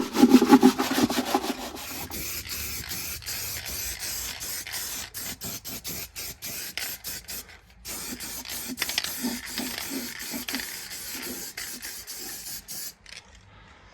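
An aerosol can spraying stone-chip underbody sealant and paint onto a rusty inner wheel arch: a hiss that stops and starts many times. It begins with a couple of seconds of louder rough scraping or rubbing.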